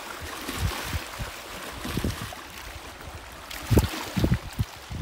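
Small waves washing and splashing against a rocky shore, a steady rushing wash, with a few short, low thumps near the end.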